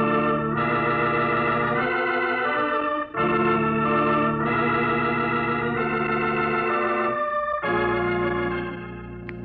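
Organ music bridge marking a scene change in a radio drama: a string of held chords that shift every one to two seconds, falling quieter near the end.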